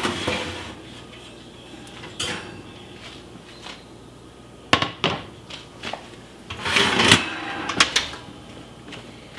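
Kitchen handling clatter: the oven rack sliding out, a Crofton enameled cast iron braiser knocking down onto a glass-top electric stove, and the oven door being shut with sharp clacks near the end.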